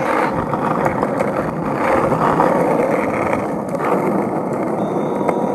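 Skateboard wheels rolling fast down a coarse asphalt road: a loud, steady rolling rumble with a few light clicks over cracks and grit.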